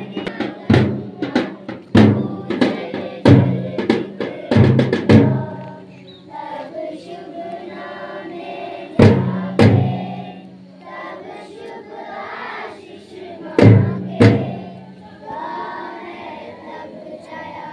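Parade march music: loud drum beats at a steady marching pace, a little under two a second, for about five seconds, then a softer melodic passage with a few loud drum strikes.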